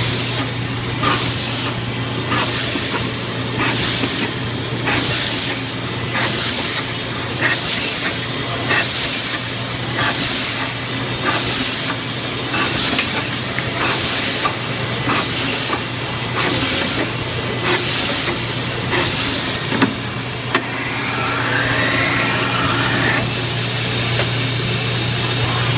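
Orion Xp automatic bandsaw slicing frozen tuna blocks: a steady motor hum with a short hissing burst about every 1.3 seconds as each slice is cut. The bursts stop about 20 seconds in, and the machine runs on steadily.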